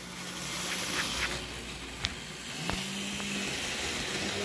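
Brass HO-scale RSD-15 model diesel locomotive running along the track: a steady motor hum with its wheels rolling on the rails, broken by a few sharp clicks. The hum rises slightly in pitch a little past halfway.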